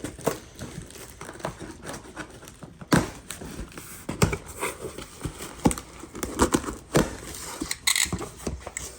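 Cardboard box and packaging being opened and handled: irregular rustling and crinkling with many sharp clicks and knocks.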